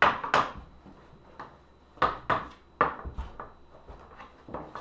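Thin sanded wood slab handled and leaned against another slab: a series of knocks, bumps and scrapes of wood on wood, loudest right at the start and again about two seconds in.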